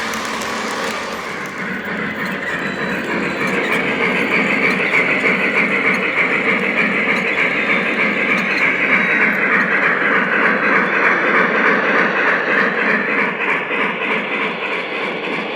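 O gauge model train running on track: a Lionel Legacy Pennsylvania Railroad S1 duplex locomotive pulling a string of metal passenger cars, with steady wheel rumble and rapid clicking over the rail joints. It grows louder about four seconds in as the train comes nearer.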